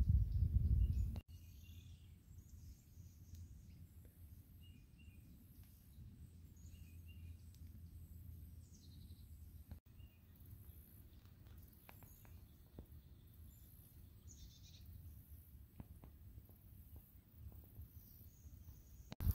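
Quiet outdoor ambience with faint, scattered bird chirps and a few small clicks. For the first second or so a loud low rumble, like wind buffeting the microphone, then cuts off abruptly.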